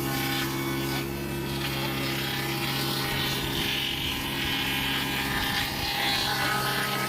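Electric woodworking machine running steadily with a constant motor hum, over which a higher rushing noise, typical of wood being cut, swells and fades in the middle.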